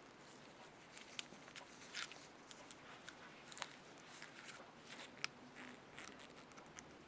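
Faint, irregular small clicks and scratches of a small metal speed nut being handled as its tabs are bent back down, with a few sharper ticks among them.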